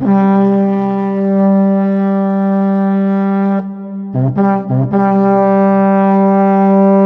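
Ship's horn sounding a long blast at one steady pitch, then two short blasts about four seconds in, then another long blast.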